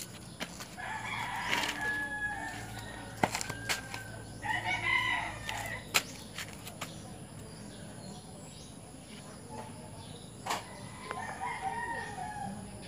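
A rooster crowing, with a long call about a second in and another around four and a half seconds in, and a weaker call near the end. A few sharp clicks are heard between the calls.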